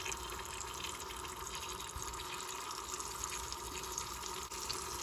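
Chicken breasts frying in oil in an Instant Pot's stainless inner pot on the sauté setting: a steady sizzle dotted with small crackles as the pot heats up and the meat begins to brown.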